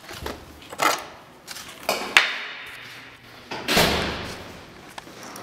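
A door being opened and swung shut: a few separate knocks and clunks, the last near four seconds in trailing off over about a second.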